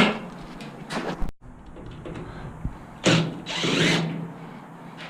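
Power drill running in two short bursts, about three and four seconds in, with a steady motor hum, after a knock at the start.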